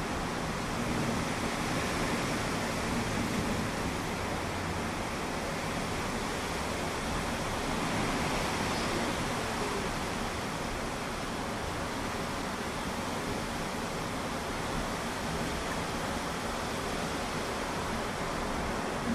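Steady rushing noise of storm wind and rain, even and unbroken.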